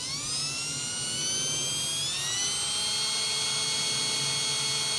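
Cordless drill with a 3/16-inch bit drilling a hole through the truck cab's sheet metal: a steady high motor whine that rises in pitch over the first two seconds, then holds level.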